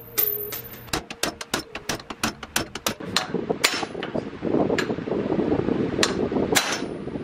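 Steel ball-peen hammer striking the wheel studs of a C5 Corvette front wheel bearing hub held in a bench vise, driving the studs through the hub flange with sharp metal-on-metal blows. A quick run of about four to five blows a second comes about a second in, then slower single blows.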